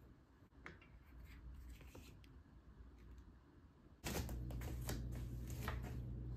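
Faint small clicks and metal rattles of bicycle parts and an Allen key being handled. About four seconds in, a steady low hum starts abruptly and the clicks become denser as the key works at the rear dropout.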